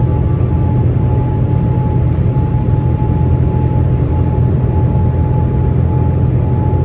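Steady airliner cabin noise heard from inside the plane: a low, even rumble of engines and airflow with a thin whine that flickers on and off.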